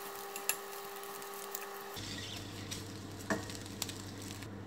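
A silicone spatula and a metal turner scraping and clicking against a stainless steel frying pan as an omelette is broken into pieces, over a light sizzle from the hot pan. The utensil clicks stop about two seconds in, leaving the steady sizzle with one more tap a little later.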